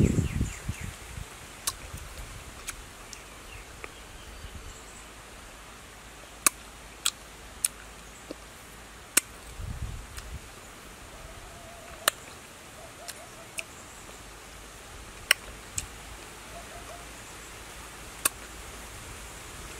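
Eating grapes: about ten sharp clicks and pops, spaced irregularly, as grapes are pulled off the bunch and bitten, with a couple of soft chewing and handling thumps. The background is quiet and steady.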